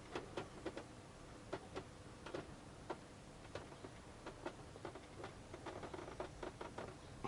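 Faint, irregular light clicks and taps of small metal engine parts being handled, a few a second.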